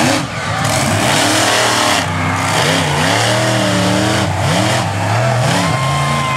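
Monster truck engines revving hard, the throttle rising and falling again and again as the trucks race, over a steady rush of noise. A steady high whine is held for about a second near the end.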